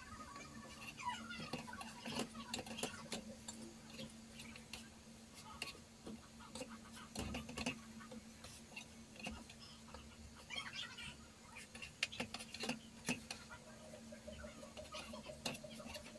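Quiet, scattered light taps and clicks of a spatula and semolina cakes being turned and moved on a flat griddle and set on a plate, over a steady low hum.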